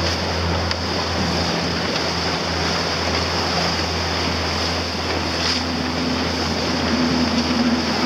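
Rigid inflatable boat underway at speed: its motor hums steadily under the rush of wind on the microphone and water churning in the wake. A higher engine tone comes up over the last few seconds.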